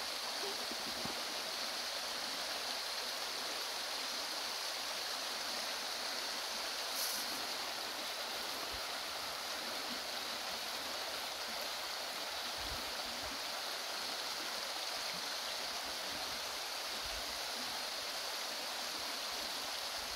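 Mountain stream flowing, a steady rush of water that holds unchanged throughout.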